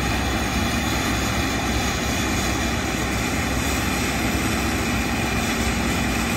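Claas and John Deere combine harvesters working a barley field: a steady, heavy diesel engine drone with the rush of threshing and the unloading auger running, called a brutal sound.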